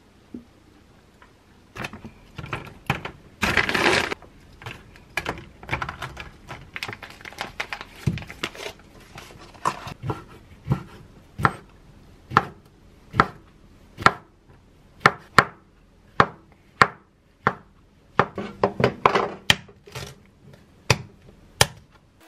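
Chef's knife slicing food on a wooden cutting board, a sharp knock against the board with each cut, about one a second through the second half. Earlier, scattered kitchen clatter and a brief noisy rustle.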